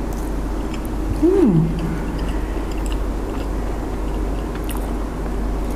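A woman chewing a mouthful of boiled wonton, with a short hummed "mm" about a second in whose pitch rises and then falls. A steady low hum runs underneath.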